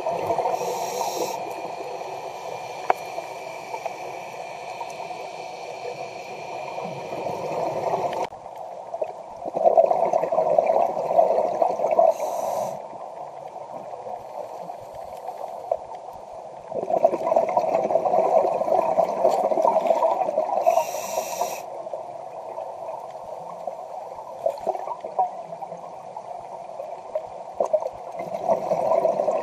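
Scuba diver breathing through a regulator underwater: a short hiss of inhaling about every ten seconds, and between the breaths, long bubbling rushes of exhaled air.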